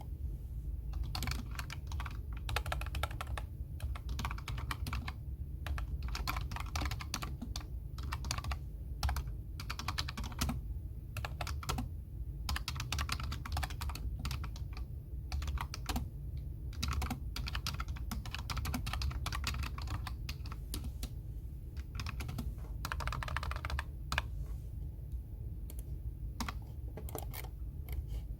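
Computer keyboard typing in bursts of rapid keystrokes with short pauses between them, over a steady low background hum.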